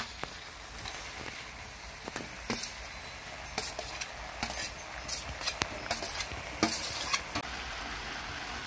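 Steady sizzling in a hot wok as sliced long eggplant is spooned in onto fried minced pork. Metal spoon and spatula scrape and clink against the wok and plate, most often in the middle stretch.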